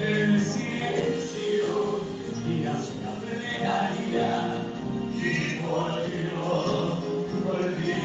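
Male voices singing a bolero over instrumental accompaniment.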